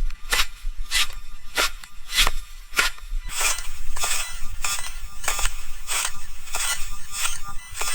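Footsteps crunching through dry leaves at a steady walking pace; from about three seconds in the steps come quicker, with more crackle.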